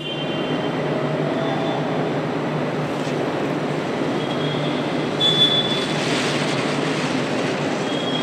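Steady industrial rumble and hum of a car assembly plant, with a short high-pitched squeal about five seconds in and another near the end.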